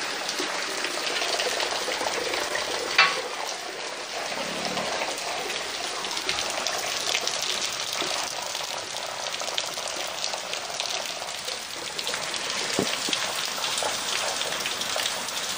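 Heavy rain pouring onto brick paving and concrete: a steady hiss dense with the patter of drops, with a short click about three seconds in.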